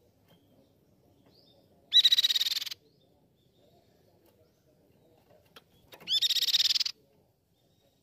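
Crescent-chested babbler (tepus pipi perak) giving two loud, short, rapid trilling calls, each under a second long and about four seconds apart.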